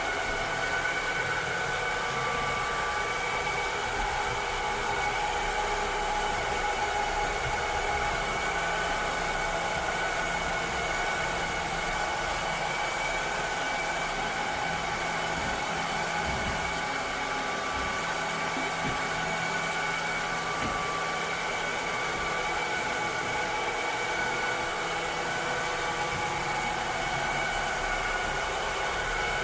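Robot vacuum cleaner running steadily: an even motor whir and hiss with a few steady whining tones over it.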